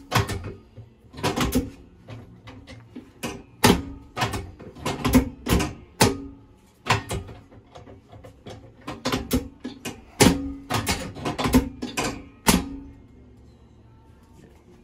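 Chiropractic drop table's pelvic section dropping under repeated thrusts on the hip, a series of sharp clacks, often in pairs, stopping a little before the end: an adjustment of a blocked left sacroiliac joint.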